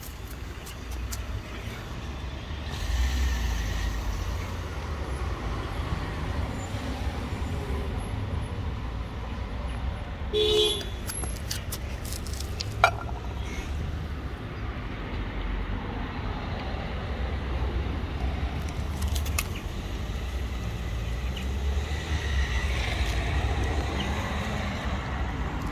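Road traffic on a nearby street: cars passing, their rumble swelling and fading. A brief pitched sound comes about ten seconds in and a single sharp click a little later.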